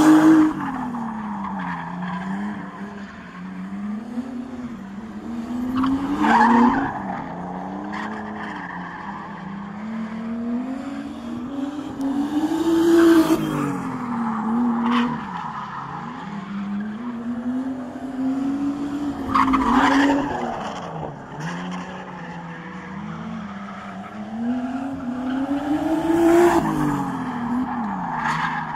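Nissan Silvia drift car sliding on the throttle. Its engine revs rise and fall over and over while the rear tyres squeal, with a louder squeal peak about every six to seven seconds as it comes round the loop.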